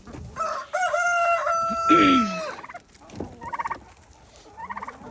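A rooster crows once, a long held call of about two seconds, followed by two short rattling calls from other poultry in the flock.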